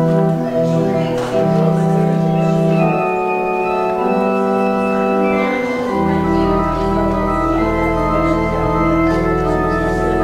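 Pipe organ playing slow, sustained chords, with a deep pedal bass note coming in about six seconds in and held under them.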